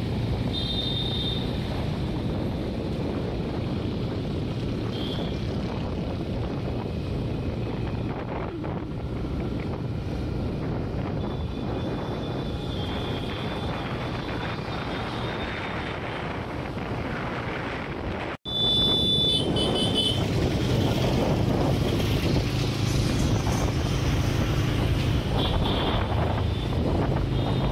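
Road traffic heard from a moving vehicle: steady engine and tyre noise with wind on the microphone, and a few short high horn toots. The sound cuts out for an instant about two-thirds through and comes back louder.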